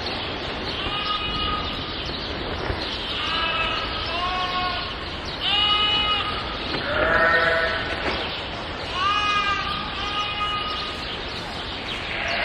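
Sheep and lambs bleating: a string of separate calls every second or two, some overlapping.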